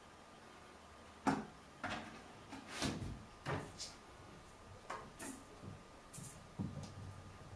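A kitten playing: irregular thumps and scuffles of its paws on a rug and floor as it pounces and scrambles after a ball toy on a string, starting about a second in, the first knock the loudest.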